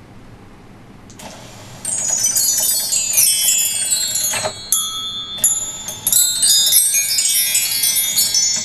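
Mark tree chimes on a motorised doorbell, swept by a brass bar running along a rail: a cascade of many small, high, ringing bell tones that starts about two seconds in and rings out near the end. This is one full cycle of the doorbell.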